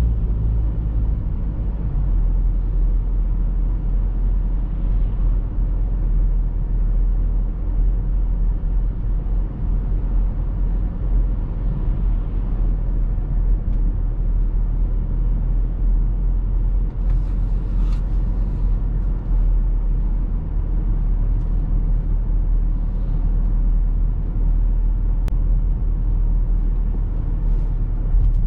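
BMW X3 F25 2.0d's four-cylinder diesel engine and tyre noise heard inside the cabin while driving steadily through town, a constant low drone.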